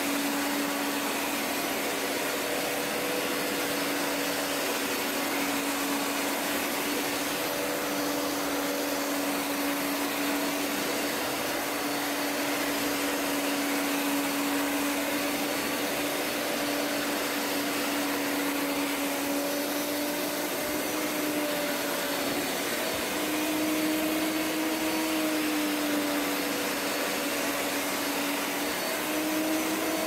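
Hoover Power Scrub Elite carpet cleaner with its hard-floor attachment running over a hard floor: a steady motor whine over a rush of suction, its pitch lifting slightly a couple of times near the end.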